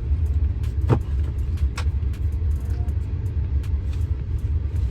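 A steady low rumble, like a vehicle engine running, with two sharp knocks about one and two seconds in.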